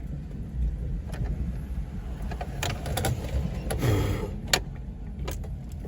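A steady low rumble with several short, sharp clicks scattered through it, and a brief faint voice about four seconds in.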